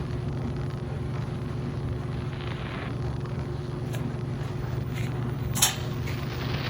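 Midea 13 kg washing machine running in its drain stage, a steady low hum, with a few faint clicks and one sharp knock about five and a half seconds in.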